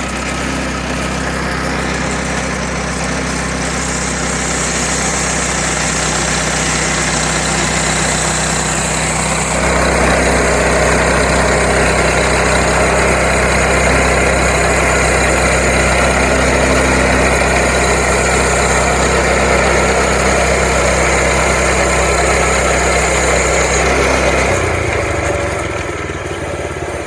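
The sawmill's gasoline engine running steadily just after starting. About ten seconds in it gets louder and fuller, then drops back a few seconds before the end.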